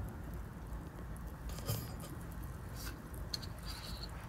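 Quiet room tone: a low steady hum with a few faint, short clicks.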